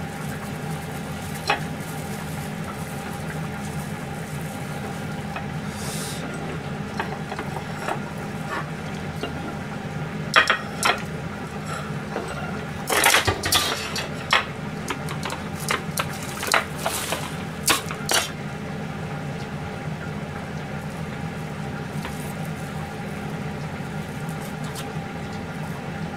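Plastic wrap and dishes handled on a kitchen counter: a run of sharp clicks and crinkles between about ten and eighteen seconds in, over a steady hum.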